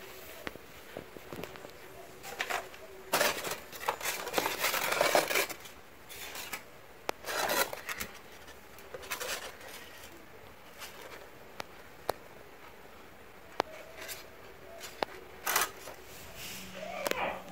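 Styrofoam letters being handled and shifted in a cardboard box: scattered bursts of scraping and rustling, the busiest a few seconds in, with a few sharp clicks.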